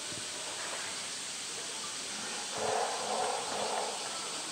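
Water sloshing and splashing as a polar bear swims through its pool, over a steady hiss. The splashing swells for about a second, a little after halfway.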